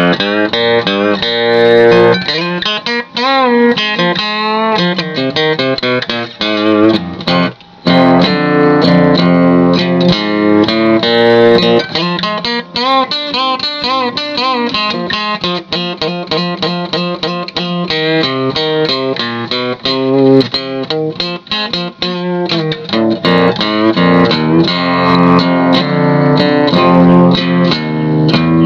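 Yamaha Eterna acoustic guitar with an all-laminate body and top being played: a run of picked notes and chords, some notes bent or wavering in pitch, with a brief pause about seven seconds in.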